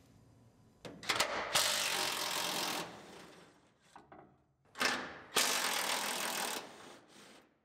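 Cordless impact wrench hammering out the truck bed's mounting bolts through a long socket extension, in two runs of about two seconds each, about a second in and again about five seconds in.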